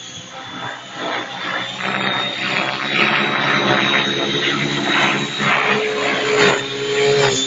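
Align T-Rex 700 radio-controlled helicopter flying close overhead: a steady whine of its motor and rotor with a high tone on top, growing louder about a second in as it comes nearer.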